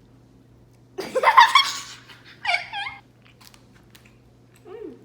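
A young child squeals loudly about a second in, then gives a shorter high-pitched cry and a brief rising-and-falling coo near the end.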